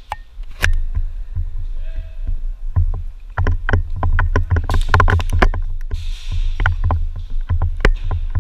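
Airsoft play with many irregular sharp clicks and knocks, densest about halfway through, over a constant low rumble of wind and handling noise on a body-worn camera. A short hiss comes near the end.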